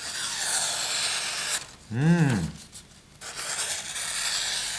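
Busse knife's factory convex edge slicing through paper, a hissing rasp heard twice, the second cut starting a little past the middle; the edge cuts but drags slightly on the paper. A short hummed vocal sound comes between the two cuts.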